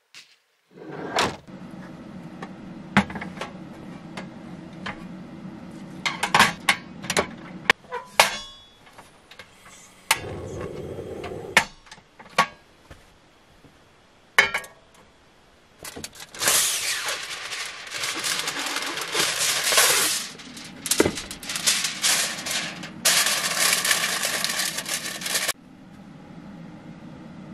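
Handling sounds of cookware: a thud about a second in, then scattered clicks and clanks as a frying pan is set on a cassette gas stove. Later, long bursts of aluminium foil crinkling and rustling as it is pressed into the pan, over a steady low hum.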